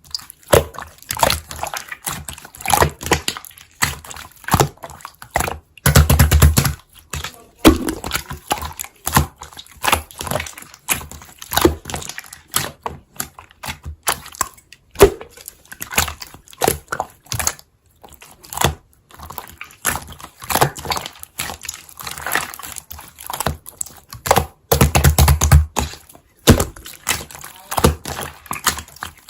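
Slime being squeezed and poked by hand, giving a dense run of sticky clicks and crackles, with two heavier, deeper squelches about six seconds in and again near the end.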